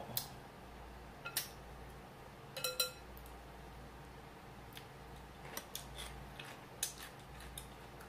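Eating utensils tapping and clinking against glass serving bowls: a scatter of short clicks, with one brief ringing glass clink just before three seconds in.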